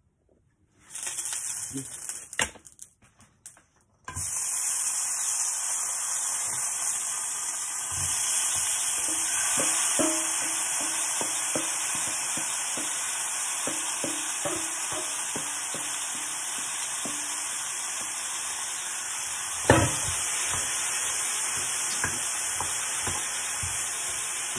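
Marinated Argentine red shrimp sizzling in a hot oiled frying pan. The sizzle starts abruptly about four seconds in, as they hit the pan, after some clattering. A wooden spoon knocks against the pan as they are stirred, with one sharper knock near the end.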